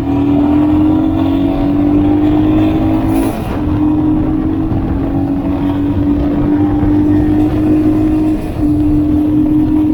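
Royal Enfield Himalayan's 411 cc single-cylinder engine pulling under acceleration, its note creeping up in pitch, with two brief dips about three and eight and a half seconds in as gears are changed. Wind rushes over the action camera's built-in mic throughout.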